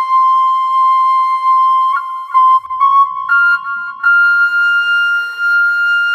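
Background music: a flute playing long held notes, with a few quick notes about two seconds in, then settling on a higher held note.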